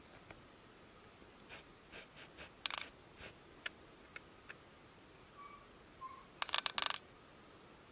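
Faint short bird chirps from a laptop's speakers, mixed with a scatter of sharp clicks and taps; the loudest is a quick run of clicks about six and a half seconds in.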